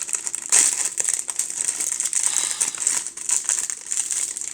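Plastic bag crinkling and rattling continuously as dry crumbs are shaken and crushed inside it.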